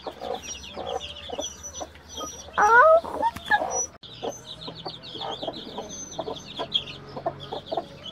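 A brood of baby chicks peeping constantly in short high chirps, with a broody hen clucking low among them. One louder call with a rising pitch comes about three seconds in.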